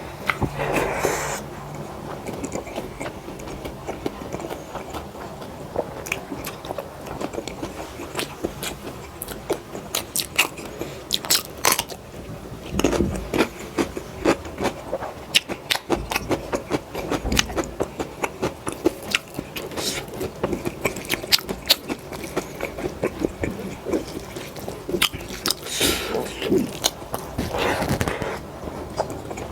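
Close-miked chewing and biting with wet mouth smacks and clicks, from a person eating a rice-and-dal meal. The sounds come irregularly throughout.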